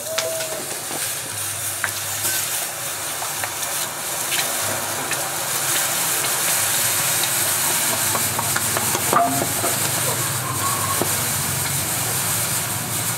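Red-hot forged steel hammer head being quenched in water, held in tongs: a steady sizzling hiss of boiling water and steam with occasional small pops. It grows a little louder a few seconds in.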